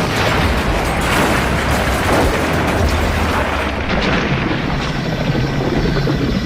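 Long crash-and-explosion sound effect: a continuous loud rumble full of many clattering impacts, turning a little duller about four seconds in.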